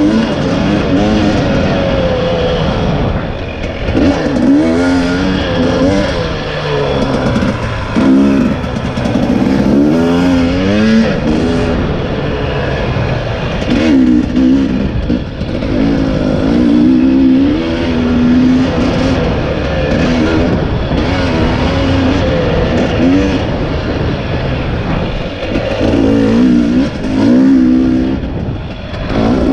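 2020 KTM 300 EXC's single-cylinder two-stroke engine, loud, its pitch rising and falling again and again as the throttle is opened and shut while the bike is ridden.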